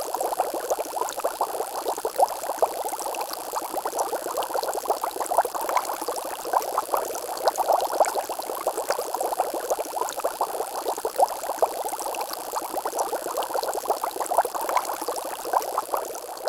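Water bubbling steadily: a dense, even crackle of many small bubbles popping.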